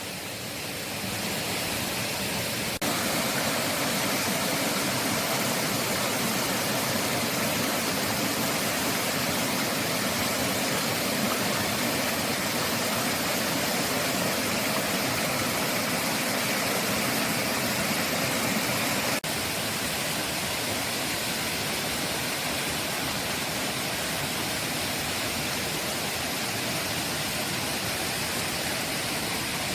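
Steady rushing of flowing water from a forest stream or small cascade, an even hiss with no let-up, with slight shifts in level about 3 seconds and 19 seconds in.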